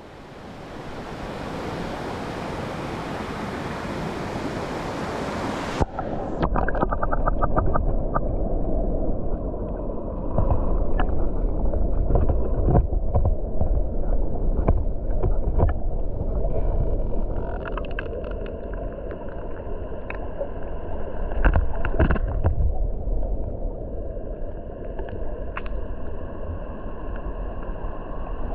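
Mountain stream water rushing over rocks, first heard in the open air as a full hiss, then about six seconds in turning abruptly to a muffled, low underwater rumble of the current as the microphone goes under the surface. Scattered clicks and knocks sound through the underwater part.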